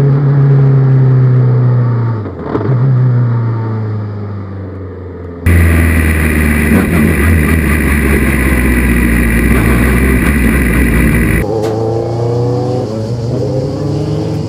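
Engine of a Formula 2 single-seater, a 250 hp Renault unit, with its revs falling and a brief dip and recovery about two seconds in, like a gear change. About halfway through, the sound switches abruptly to a louder, denser engine note with a rushing noise. Near the end it switches again to single-seater engines revving up, heard from trackside.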